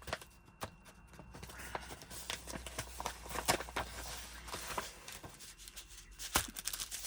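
Crinkling and rustling of a sticker packet being torn open and its stickers handled, with many small crackles and clicks, busiest in the middle.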